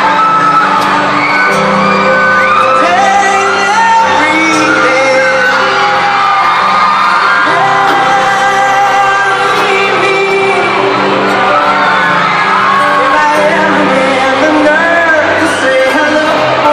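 A live band playing a pop ballad with a male lead singer, loud through a concert sound system, with shouts and whoops from the crowd around the phone.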